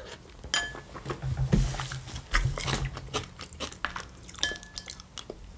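Close-miked chewing and wet mouth sounds of a person eating, with many small clicks. Two short ringing clicks come about half a second in and near the end, and a low hum runs from about one to three seconds in.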